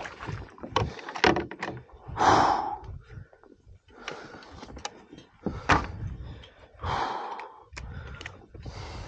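Knocks and thumps as a landing net with a freshly caught largemouth bass is swung aboard a plastic Hobie kayak and the fish is unhooked. Two short hissing rushes stand out, one about two seconds in and one near the end.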